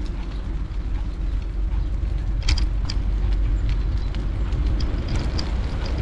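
Outdoor background noise: a steady low rumble, with a few short sharp clicks about two and a half seconds in and again near the end.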